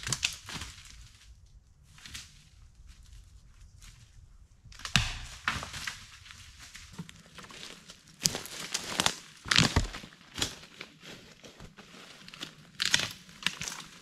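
Dead branches and twigs crackling, snapping and rustling as they are pushed through and pulled by hand, with footsteps in leaf litter. The crackles come in irregular bunches, the loudest around the middle and near the end.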